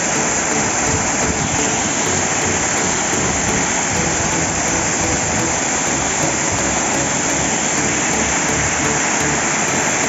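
A waterfall's falling water, loud and steady.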